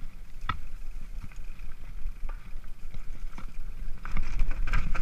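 Mountain bike riding over a rough grassy trail: tyre rumble and wind on the microphone, with scattered knocks and rattles from the bike over bumps. It gets louder about four seconds in, as the bike picks up speed downhill.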